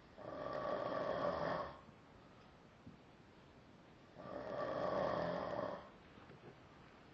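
A sleeping person snoring: two snores, each about a second and a half long, the second about four seconds after the first.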